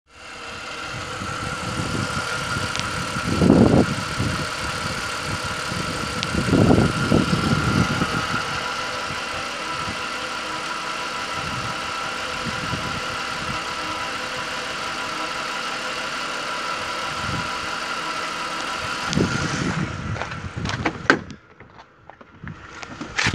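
Ford BA Falcon's 4.0-litre inline-six petrol engine idling steadily, heard close from the open engine bay, with a steady high whine over the running. Near the end the engine sound drops away and a few sharp clicks and knocks follow.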